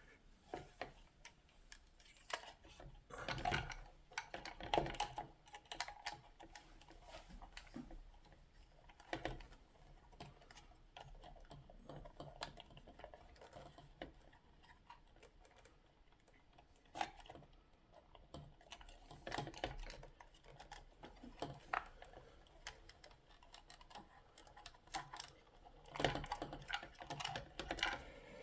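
Faint, irregular small clicks and plastic rattles from hands working hoses and cable ties inside a Chilisleep Dock Pro water unit, coming in short clusters.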